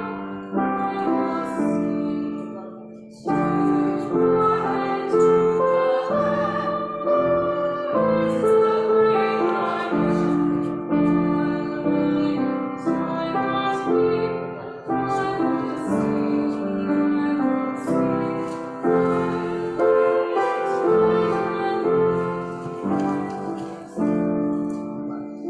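Piano playing a slow piece, each note or chord struck and left to fade.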